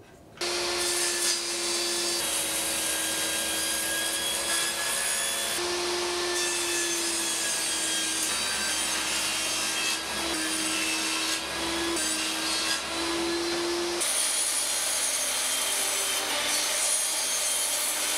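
A power saw cutting chipboard, running steadily with a whine that shifts slightly in pitch between several short cuts.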